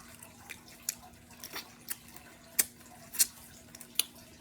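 Close-miked wet eating sounds, sharp smacks and clicks from mouth and fingers on sauce-coated crawfish, about five loud ones over a few seconds.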